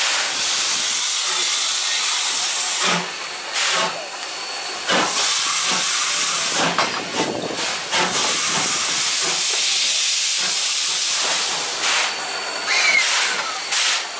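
JNR Class C11 steam locomotive venting steam: a loud, steady hiss, broken by a few short knocks.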